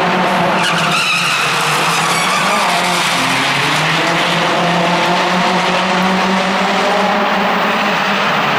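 Rally car driven hard on a stage, its engine note rising and falling, with tyres skidding on the road surface.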